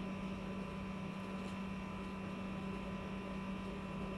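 Steady, unchanging electrical hum over a faint hiss: room background noise.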